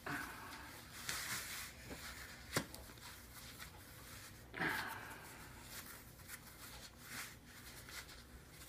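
Neoprene Rehband knee sleeve being tugged up a bare leg by hand: soft, irregular rubbing and swishing of the sleeve against skin, with a light click about two and a half seconds in and a stronger swish about halfway through.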